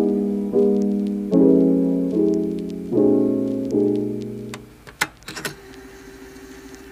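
Background piano music: slow chords struck about once a second, which fade out a little past halfway. A few light taps follow near the end.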